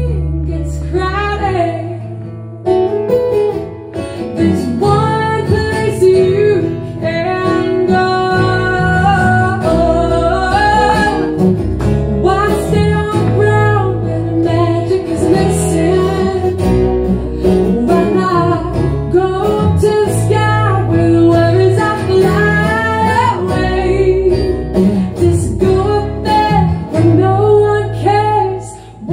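Live acoustic trio: a woman singing lead while strumming an acoustic guitar, backed by a second guitar and a bass guitar.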